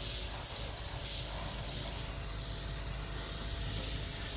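Gravity-feed compressed-air paint spray gun hissing steadily as it sprays paint.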